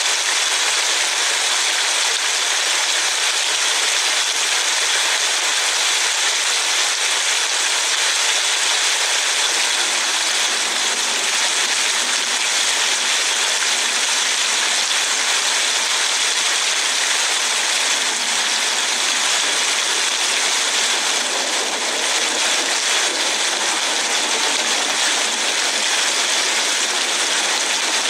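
Rain falling on a car, heard from inside it as a steady, even hiss.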